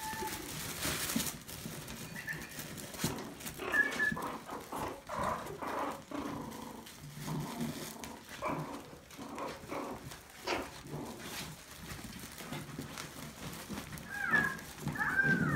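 Maltese puppies playing, with a few short high yips near the start and again near the end, over scuffling and rustling as they tussle and tug at a nylon play tunnel.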